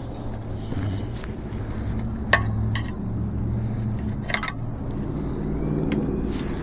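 Scattered sharp metallic clicks and knocks, about five of them, the loudest about two seconds in, as a tyre and inner tube are forced onto an e-bike wheel rim, over a steady low hum.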